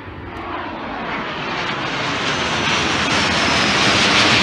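Twin-engine business jet flying overhead, its jet engine noise swelling steadily louder, with a faint high whine sliding slightly down in pitch.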